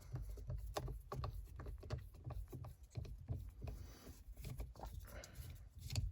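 T20 Torx screwdriver undoing the screw in the end of a van's gear-lever knob. It makes irregular small clicks and knocks of metal and plastic, over a low handling rumble.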